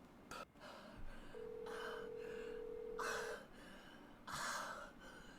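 A telephone ringback tone sounds once, a steady beep about two seconds long, as an outgoing call to 911 rings unanswered. Short, heavy breaths come before and after it.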